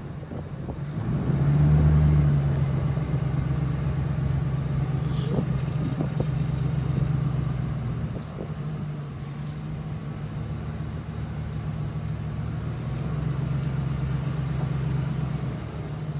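Ford F-150 pickup truck's engine running as the truck drives along, a steady low hum that swells for a moment about two seconds in.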